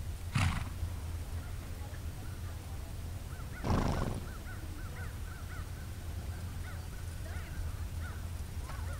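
Outdoor ambience: wind rumbling on the microphone, with two short louder gusts, about half a second in and about three and a half seconds in, and distant birds calling with many small repeated chirps.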